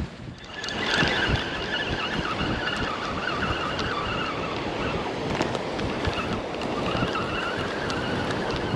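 Spinning fishing reel being cranked, a steady wavering whine, over wind noise.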